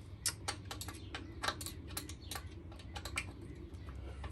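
Irregular light clicks and taps of hand tools and metal parts, about a dozen over four seconds, as the seat bracket of a recumbent tandem trike is worked loose.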